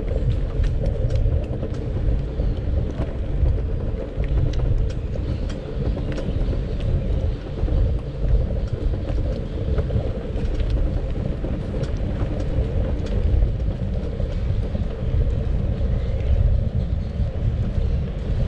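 Steady low rumble of a bicycle riding on a paved street, picked up through a camera mounted on the bike, with scattered light rattling clicks.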